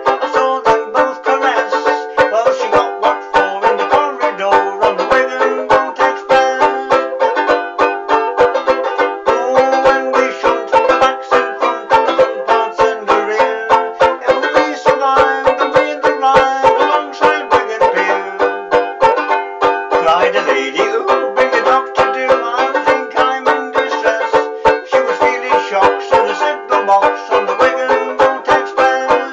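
Banjo ukulele (banjolele) strummed in a quick, even rhythm, playing an instrumental passage of a cheerful music-hall tune with no singing.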